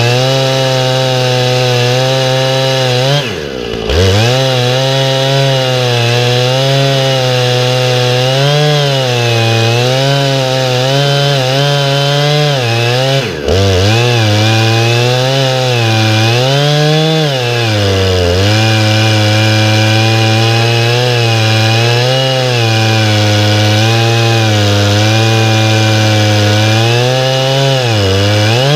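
Husqvarna 455 Rancher two-stroke chainsaw at full throttle, ripping lengthwise through an oak log on an Alaskan chainsaw mill with a ripping chain. The engine note wavers under the load of the cut, dips sharply and recovers twice, about three and thirteen seconds in, and falls away at the very end.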